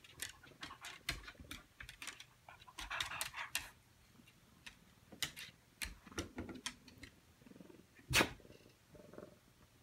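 Irregular light clicking and tapping, typical of a dog's claws on a tile floor as it moves about, with one louder knock about eight seconds in.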